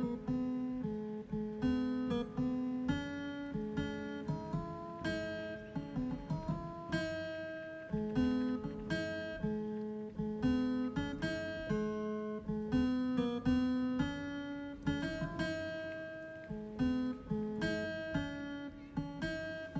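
Background music: a home-made electronic keyboard tune of plucked, guitar-like notes running steadily over a repeating low note.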